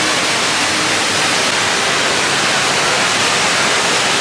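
The Rain Vortex, a tall indoor waterfall pouring through an opening in a glass dome into a pool, makes a loud, steady rush of falling water.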